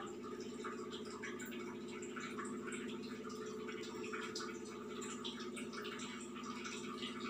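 Small, soft, irregular ticks and rustles of fingers pleating and pinching a dough wrapper to close a momo, over a steady hum.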